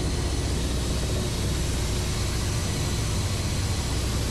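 Ka-52 attack helicopter's engines and coaxial rotors heard from inside the cockpit in low, level flight: a loud, even rumble with a steady hiss over it.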